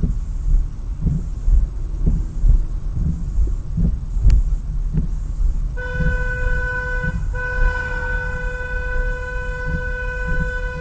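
Car horn held down in one long steady blare from about halfway through, released for a moment and then held again to the end, over the low rumble and bumps of a car driving on a city street.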